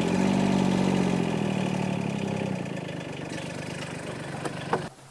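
An engine idling steadily and fading out after a couple of seconds, with two sharp knocks near the end.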